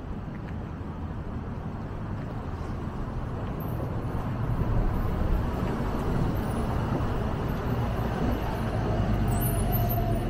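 Street traffic: a motor vehicle running close by, its low engine rumble and road noise swelling about four seconds in.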